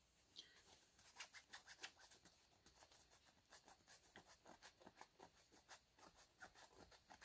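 Fingernails scratching at the scratch-and-reveal heart panel on a plush toy: a run of quick, faint, irregular scratches.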